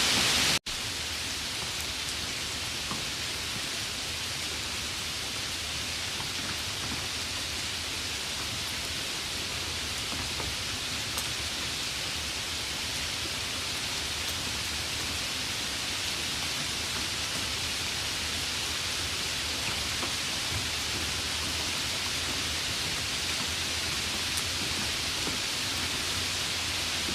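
Steady rain falling, an even hiss with faint scattered drop ticks. About half a second in, the sound cuts out for an instant and picks up again a little quieter.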